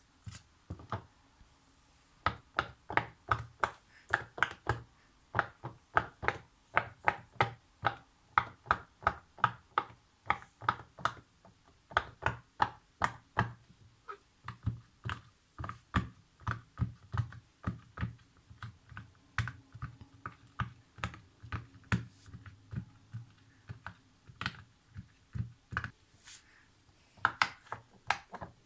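Silicone pop-it fidget toy, its bubbles pressed in one after another, each giving a short soft pop with a dull thud under it, about two to three pops a second, with a brief pause about halfway through and another near the end.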